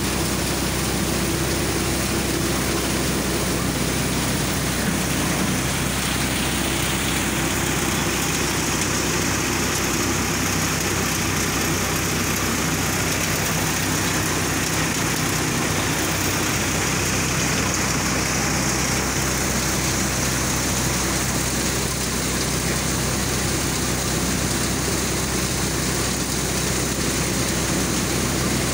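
Engine-driven crop thresher running steadily while dry cut crop is fed into it: a continuous mechanical hum with a steady hiss of straw and grain passing through.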